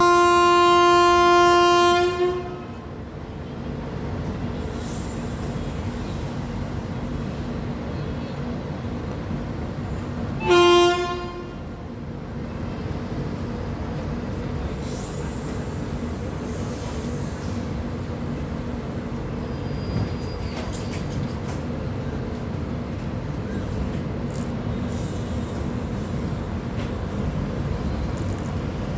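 Paschim Express locomotive horn giving the two-honk departure signal: a long blast of about two seconds, then a short one about ten seconds later. Under and after the honks, the steady rumble of the train running.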